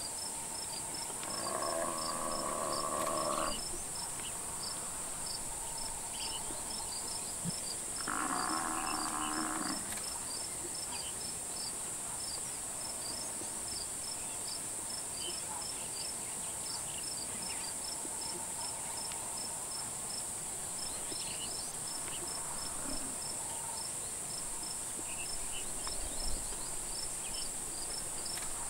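Insects calling: a steady high-pitched buzz with a regular cricket-like chirp repeating about three times a second. Twice, starting about a second and about eight seconds in, a pitched sound lasting about two seconds rises over it.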